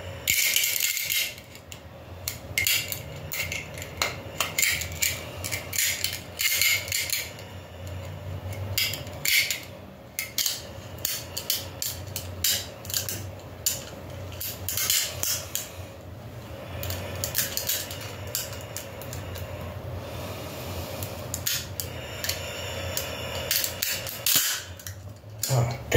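Irregular clicks, scrapes and rattles of a Springfield 10 mm pistol magazine, its spring and an extension base plate being worked together by hand: a stiff, fiddly fit that takes repeated tries.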